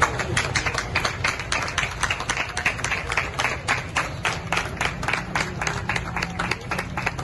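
Group applause: many people clapping their hands, a continuous, uneven patter of claps.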